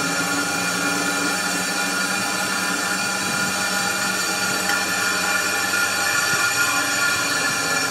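Sherline CNC milling machine with a fourth (rotary) axis running: a steady whine of several tones over a motor hum.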